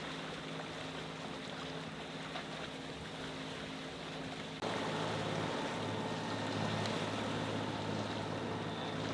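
Sailing yacht underway under its inboard engine: a steady low engine hum over wind and water noise. About halfway through, the sound changes abruptly to a slightly louder, deeper hum.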